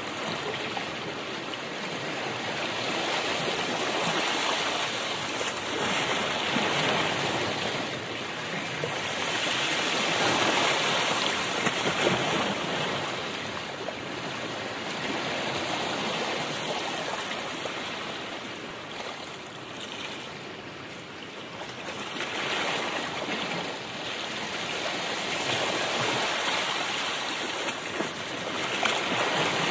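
Road and wind noise of a moving car, heard from inside: a steady rushing noise that swells and eases every several seconds.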